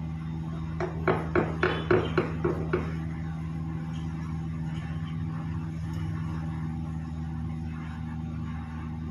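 A steady low electrical hum from workshop equipment runs throughout. About a second in, a small hand tool working on a phone display makes a quick run of about seven short, sharp strokes, roughly three to four a second.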